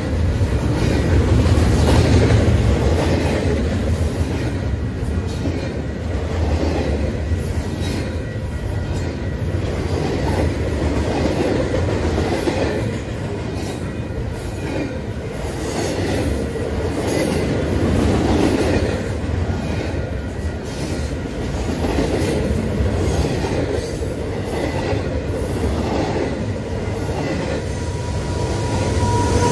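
Double-stack intermodal freight cars rolling past close by: a steady loud rumble of steel wheels on rail with frequent wheel clicks and a faint high wheel squeal.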